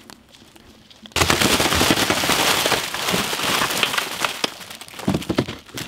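Dozens of plastic-wrapped Oreo biscuit packets tumbling out of a cardboard box into a large metal basin: a sudden dense crackling and rustling of wrappers that starts about a second in and thins out near the end.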